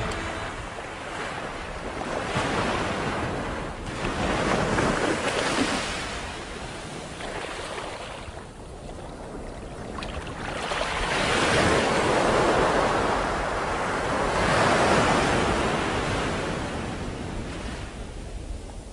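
Wind and rushing river water: an even rushing noise that swells and fades every few seconds.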